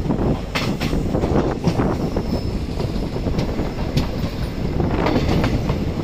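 Passenger train running along the track, heard from on board: a steady rumble of the coach with sharp clicks now and then as the wheels run over the rails.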